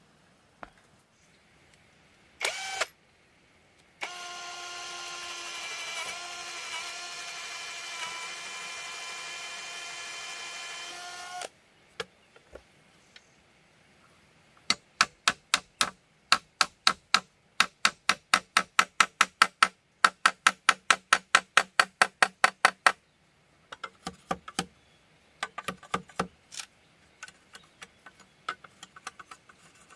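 A small power tool's motor runs at a steady pitch for about seven seconds. After a pause comes a fast, even run of sharp strikes, about four a second, lasting some eight seconds, followed by a few scattered lighter knocks.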